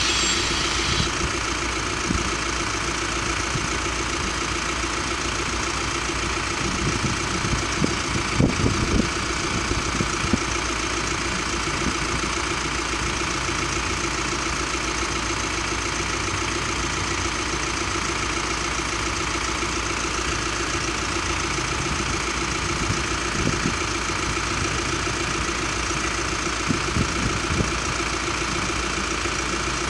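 Car engine idling steadily at a closed level crossing, with the crossing's warning bells ringing without a break.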